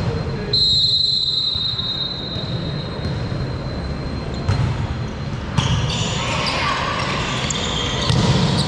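Volleyball referee's whistle blowing about half a second in to start a rally, then sharp ball hits echoing in the sports hall and rising shouts and cheers near the end.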